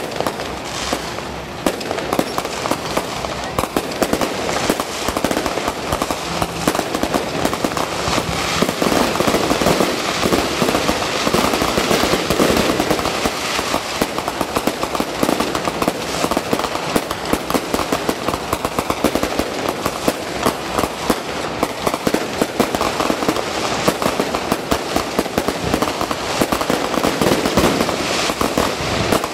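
Aerial fireworks going off in rapid, near-continuous succession: a dense crackle of bursts and crackling stars, with no break.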